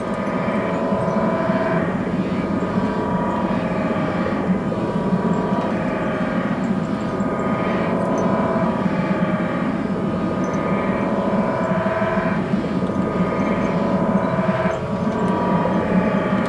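Computer-generated electronic music: dense layered synthesizer drone tones whose pitches shift every second or two, driven by the dancers' body movements as tracked by cameras.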